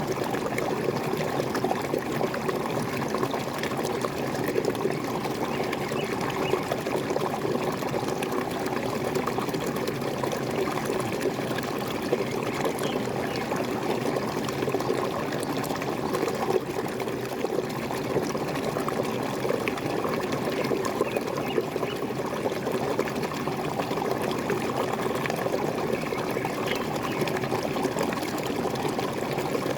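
Waterfall: water pouring and splashing steadily, with a constant rushing sound.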